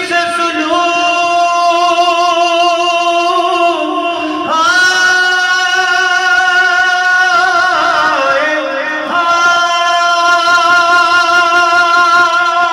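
A man's voice singing a Farsi noha (mourning lament) in long, drawn-out held notes. About three sustained phrases are heard, with short sliding pitch changes between them, and no clear words.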